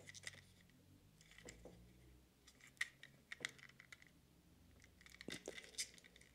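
Faint clicks and light clattering taps of small plastic parts being handled, in several short clusters, the sharpest a little under halfway and again near the end.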